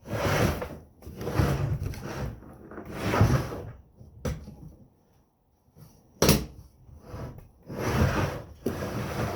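Plastic case of a Milwaukee M18 Packout radio being handled: a series of bumps, rubs and knocks, with a sharp click about six seconds in.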